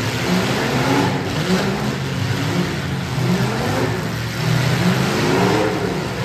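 Engines of several demolition derby cars running at once, revving up and down over one another in a loud, continuous din.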